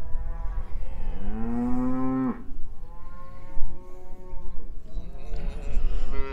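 Cattle mooing as they are turned out to pasture: one long call rising in pitch and cutting off sharply, then two fainter calls.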